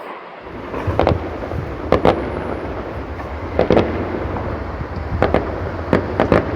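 Fireworks going off in the distance: sharp bangs and cracks at irregular intervals, some in quick pairs, over a steady low rumble.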